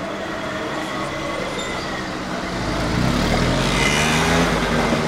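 Street traffic, with a motor vehicle's engine passing close: its low rumble swells about halfway through and is loudest near the end.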